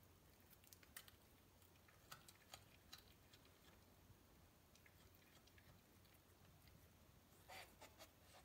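Near silence with faint scattered clicks of a cat biting and chewing at a caught mouse, and a short louder crunch about seven and a half seconds in.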